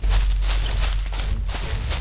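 Background music with a deep, sustained bass and a steady percussive beat, coming in suddenly and loud.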